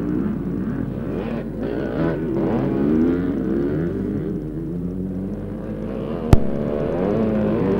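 Scramble motorcycle engines revving up and down as the bikes race past, more than one at once. A single sharp click comes about six seconds in.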